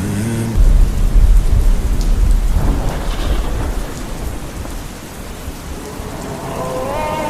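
Thunder over steady rain. A loud low rumble starts about half a second in and fades over the next few seconds while the rain carries on, and music comes back in near the end.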